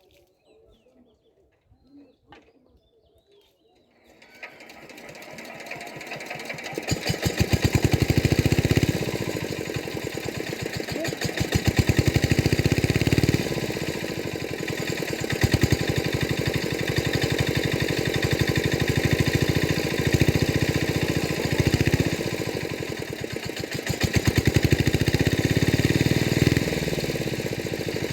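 A small engine starts about four seconds in, picks up speed over the next few seconds, then runs with a fast firing beat, getting louder and softer several times.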